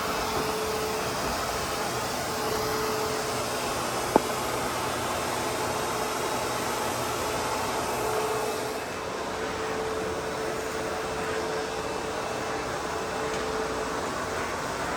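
ProTeam Super Coach backpack vacuum running steadily, with a whine that fades in and out. A single sharp click about four seconds in.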